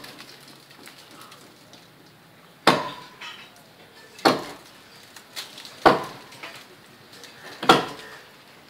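A hand-held blade chopping into the trunk of a coconut palm: four sharp chops, evenly spaced a little under two seconds apart, starting nearly three seconds in.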